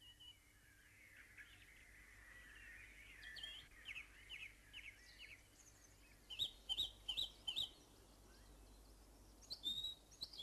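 Faint birdsong: several small birds chirping and trilling, with a run of four quick, evenly spaced high notes about two-thirds of the way through.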